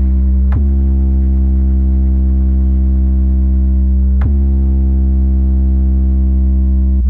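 A loud electronic bass drone plays through a DJ speaker-box sound system: a steady, very deep synth tone with many overtones. Twice, about half a second in and again about four seconds in, it swoops down quickly in pitch before settling back into the drone.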